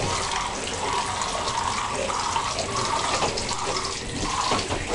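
Water running steadily and splashing while greenhouse plants are watered.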